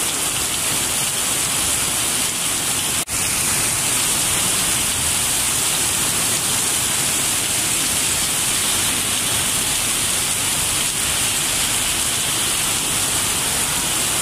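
Heavy rain pouring down on a street and pavement, a steady loud hiss that drops out for an instant about three seconds in.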